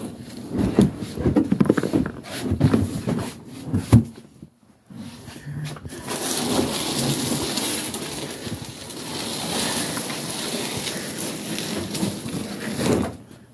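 Irregular thumps and knocks of footsteps and a container being carried and handled, then a steady rushing noise through the second half.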